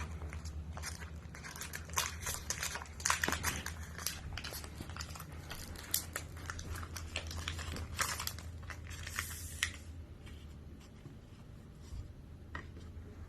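A trading-card pack wrapper being torn open and crinkled by hand: irregular crackling rustles that die down to a few faint rustles for the last few seconds, over a steady low hum.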